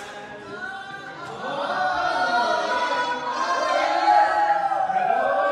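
Singing voices with music, most likely the song played for the couple's entrance dance, getting louder about a second and a half in.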